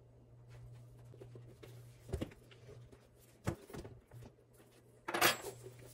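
A leather belt and belt bag with metal buckle hardware being handled: a few light clicks and knocks, then a louder brief rattle of the hardware about five seconds in, over a low steady hum.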